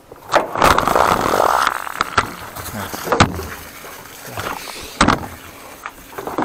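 Clatter and several sharp knocks of a water supply hose and its fittings being handled and hooked up to a high-pressure sewer jetter, with a short rushing noise about half a second in.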